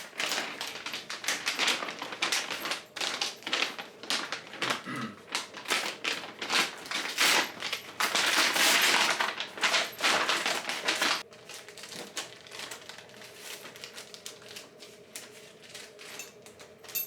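Packaging rustling and crinkling as clothing is handled and unwrapped: dense, irregular crackles and rustles with a longer loud rustle a little past the middle, then quieter, sparser handling noise for the last few seconds.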